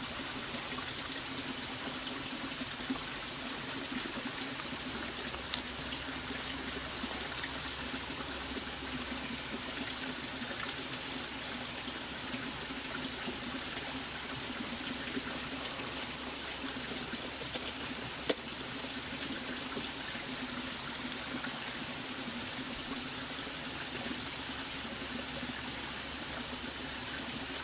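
Steady sound of running water with no break. A single sharp click comes about two-thirds of the way through.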